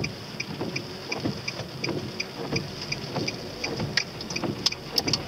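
A car's turn-signal indicator ticking steadily, about three ticks a second, inside the cabin over engine and road noise. A few sharper clicks join in near the end.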